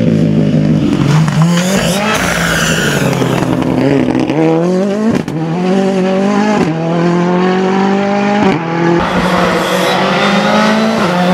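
Ford Fiesta rally car's engine accelerating hard on a stage. The pitch climbs and drops back at each upshift, several times over.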